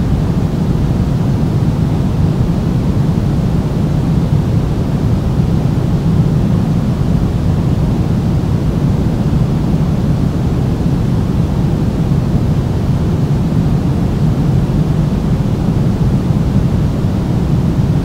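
Steady pink noise: an even, unbroken rush, strongest in the low range, with no changes.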